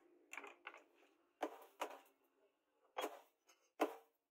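Hammer blows on a steel machete blade resting on an anvil: about five sharp strikes at uneven spacing, each with a short metallic ring. The blade is forged from truck leaf-spring steel.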